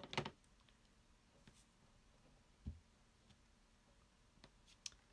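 Near silence broken by a few faint clicks and taps and one soft thump about halfway through: a clear acrylic stamp block being tapped on an ink pad and pressed onto card stock. A sharper click comes right at the start.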